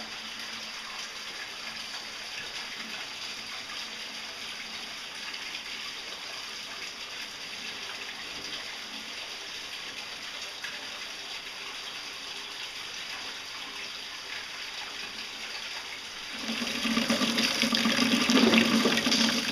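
Cave stream swollen by heavy rain, running with a steady hiss of flowing water. About sixteen seconds in, a much louder splashing starts as a shower of water falling from the cave roof strikes a plastic container.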